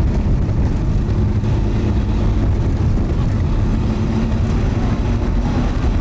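Steady engine and road rumble of a moving bus, heard from inside the passenger cabin.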